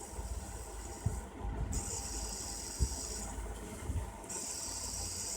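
Faint handling noise: a few low knocks and bumps, about 1, 3 and 4 seconds in, over a high hiss that comes and goes.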